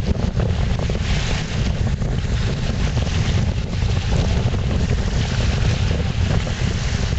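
Strong wind blowing across the microphone: a constant low rumble that flutters with the gusts, with a hiss on top.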